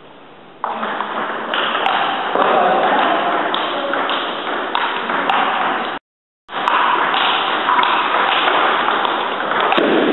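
Table tennis ball being hit back and forth with bats and bouncing on the table during a rally, as a few sharp clicks over a constant background din in the hall. The sound drops out completely for about half a second about six seconds in.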